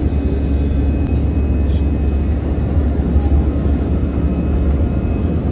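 Steady low rumble of airliner cabin noise, with a few faint short clicks.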